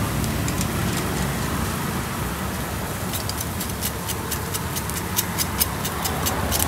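Meat sizzling on a charcoal grill over the steady hum of passing road traffic. From about three seconds in, metal tongs clatter on the grill grate in a quick run of sharp clicks, several a second.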